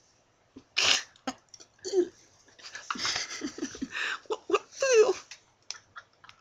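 Two young men laughing and giggling in short breathy bursts, with one longer wavering laugh about five seconds in.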